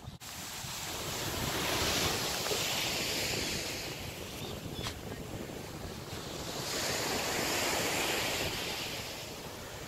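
Sea surf breaking and washing up a sandy beach, the hiss swelling twice, about two seconds in and again about seven seconds in. Under it, a low rumble of wind on the microphone.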